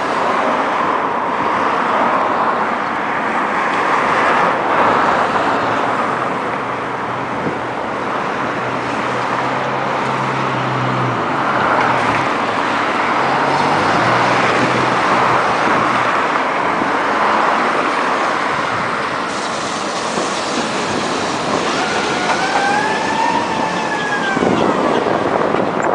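Tram running along its rails: a steady loud rumble of wheels and running gear, with a low motor hum through the middle. Near the end a brief pitched whine rises and then falls away.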